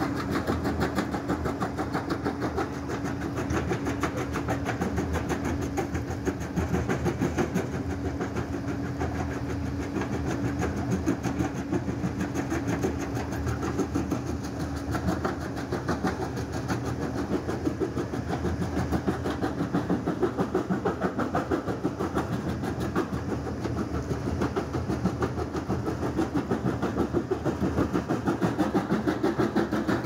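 Kobelco excavator running with a crusher bucket grinding stone, a fast, steady clatter of rock being crushed and falling out as gravel, over the excavator's diesel engine.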